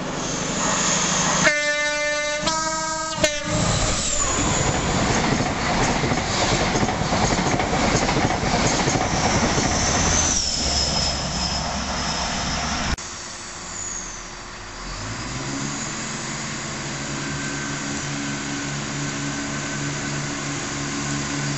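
A train horn sounds two notes, one after the other, about a second and a half in. An express train then rushes through at speed with loud wheel and air noise. Near the end a diesel multiple unit approaches with a steady engine hum.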